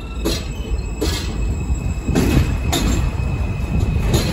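New York subway train running on elevated track, heard from its front car: a steady low rumble of wheels on rail, broken by several sharp clacks as the wheels cross rail joints and switches. Another subway train comes alongside on the next track near the end.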